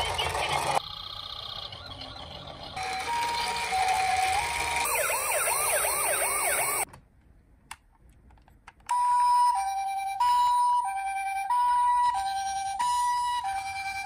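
Toy ambulances' electronic sirens: a two-note high-low "pee-po" ambulance siren, a fast rising-and-falling wail for a couple of seconds, a brief pause about halfway, then the alternating two-note siren again, steady to the end.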